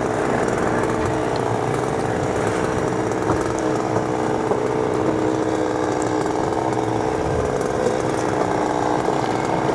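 Small boat engine running steadily at an even pitch.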